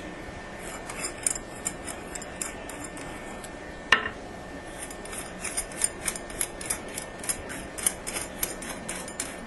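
Small metal clicks and taps from a brass toilet ball cock and its nut being handled against a porcelain tank lid, with one louder, briefly ringing clink about four seconds in. Quick clicks come thick and fast in the second half.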